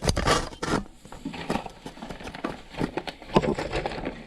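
Footsteps and handling noise: irregular knocks and scuffs, with a dense rustle in the first second and one sharp knock a little past the middle.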